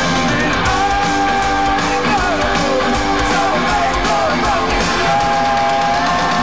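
Hard rock band playing live at full volume: distorted electric guitars with long held notes over bass and drums, heard from within the arena crowd.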